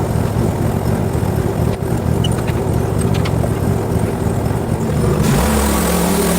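Petrol engine running steadily under load. About five seconds in the sound changes, growing brighter with a steady hum setting in.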